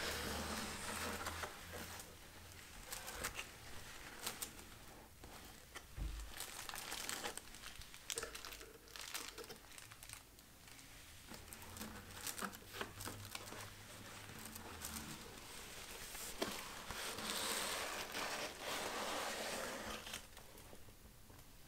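Close handling of a cardboard shipping box and its tissue-paper packing: tissue paper crinkling and rustling, with light cardboard taps and scrapes. The rustling is fuller right at the start and again from about three quarters of the way through.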